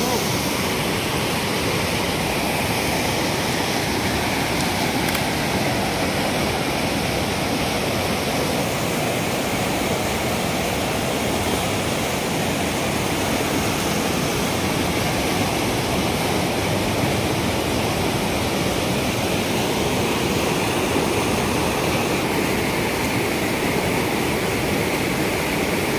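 Fast river rapids rushing steadily, a constant even wash of whitewater noise.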